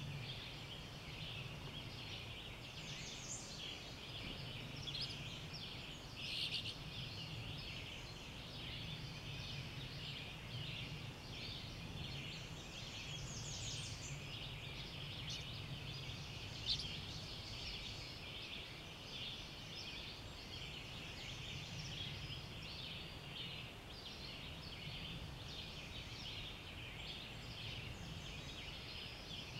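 Dawn chorus of many songbirds: dense overlapping chirps and quick trills, with one sharper, louder note a little past halfway. A low steady hum runs underneath.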